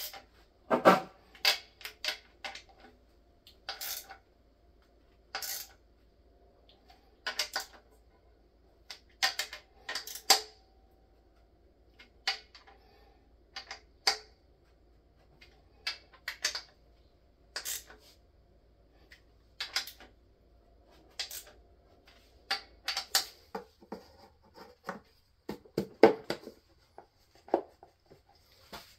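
Scattered sharp metallic clicks and clinks of a socket ratchet and hand tools on the front pump bolts of a 4L80e transmission, coming irregularly about every second or two, some in quick pairs.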